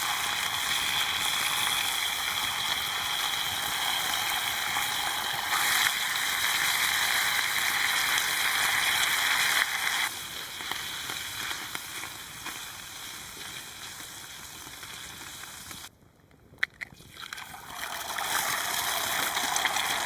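Bacon sizzling in a very hot frying pan, a dense steady hiss. The sizzle quietens a little about halfway through, drops out for a moment about three-quarters of the way in, then comes back.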